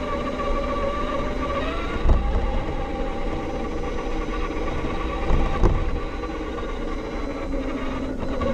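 Losi 22S SCT electric RC short course truck driving over concrete sidewalk, heard from a camera mounted on its body: motor and drivetrain whine that shifts in pitch with speed over tyre rumble. A couple of sharp knocks, about two seconds in and again past five seconds, as the truck jolts over the pavement.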